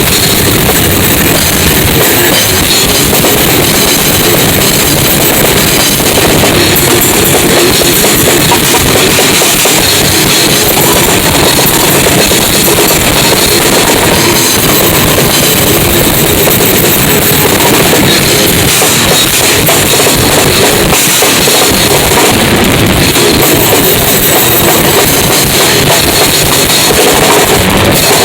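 Rock band rehearsing, with a drum kit's bass drum and cymbals driving a loud, dense, unbroken wall of sound.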